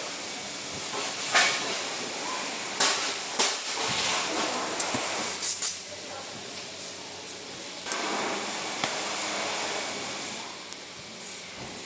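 Body-shop work on a mini-truck: a steady hiss with a handful of sharp knocks at irregular intervals.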